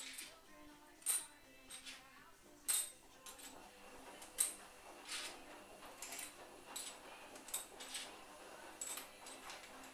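Brass bases of spent 12-gauge shotshells clinking as they are set down one by one on a stone worktop: a string of sharp metallic clicks at irregular intervals.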